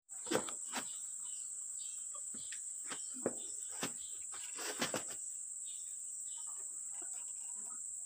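A steady high-pitched insect drone, with a series of sharp knocks and clinks from heavy engine parts being handled, most of them in the first five seconds.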